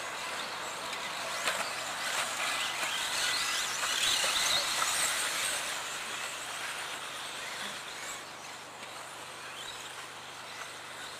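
Several 1:10-scale 4WD electric RC buggies racing on a dirt track: the high-pitched whine of their brushless motors and drivetrains, rising and falling as the cars accelerate and brake. The sound is loudest about four to five seconds in, then eases off as the cars move away.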